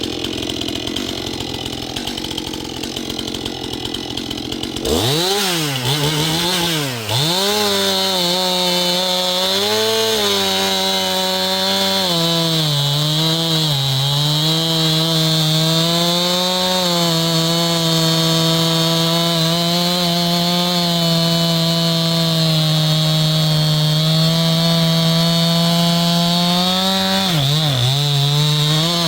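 Stihl two-stroke chainsaw blipped up and down a few times about five seconds in, then held at full throttle at a steady high pitch, cutting through a log with small sags under load. It drops off just before the end.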